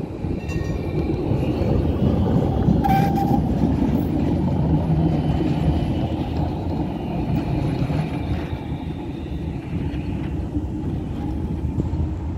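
A tram running past on its rails, a steady rumble of wheels and running gear, strongest through the middle. A short high tone sounds about three seconds in.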